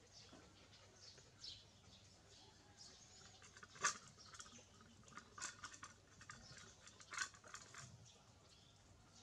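A young dog eating from a metal pot: faint scattered clicks and chewing, with one sharper clink about four seconds in and a few more clinks between five and eight seconds in.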